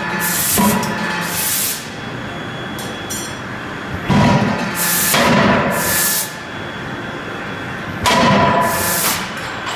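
31.5 kJ CNC die forging hammer working, with three loud hissing bursts about four seconds apart, each lasting one to two seconds, over a steady machine background.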